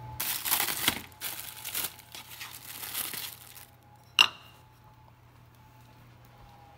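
Packaging crinkling and rustling for about three and a half seconds, then a single sharp clink as a block of coating chocolate is set down in a small ceramic dish.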